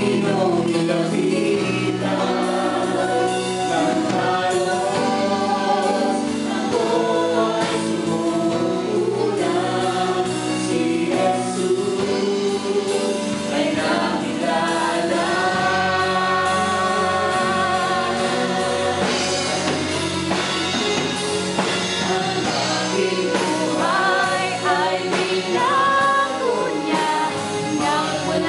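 Live worship band playing a praise song: female and male singers over drums and electric guitar.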